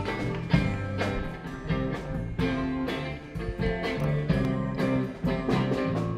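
Live band playing an instrumental, with guitar and keyboard notes over a steady beat.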